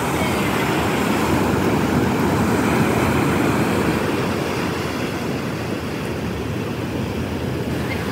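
Ocean surf breaking and washing over shallow sand in a steady rush, swelling a couple of seconds in and easing toward the end.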